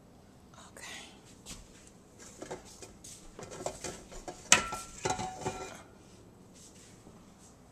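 Stainless-steel stand-mixer bowl being worked loose from its base and lifted, with a run of metal clinks and knocks. The loudest is a sharp clank about four and a half seconds in, after which the bowl rings briefly.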